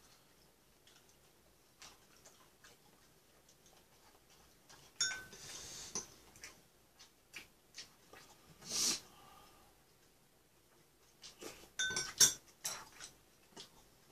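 Chopsticks tapping and clinking against ceramic bowls and plates at a laden table, in scattered clicks, with a ringing clink about five seconds in and a quick run of clinks near the end, the loudest about twelve seconds in. A short soft rush of noise comes a little past the middle.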